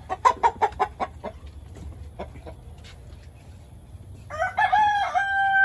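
Chickens clucking in a quick run of about six sharp calls near the start. About four seconds in a rooster crows: one long crow that rises and then holds steady.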